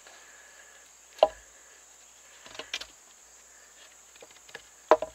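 Fixed-blade knife cutting into a wooden stick while carving a notch: a few sharp clicks and snaps as the blade bites and chips of wood pop out, one about a second in, a couple around the middle, and the loudest near the end.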